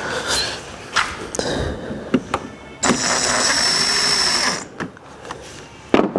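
A power drill runs for about two seconds in the middle, with a steady high whine. Several sharp clicks and knocks come before it and one after it.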